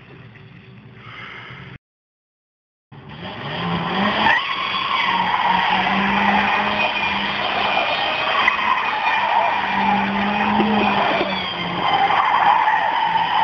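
Opel Ascona driven hard, its engine revving high and wavering up and down while the tyres spin and skid on wet asphalt. The sound drops out completely for about a second near the start, then comes back loud.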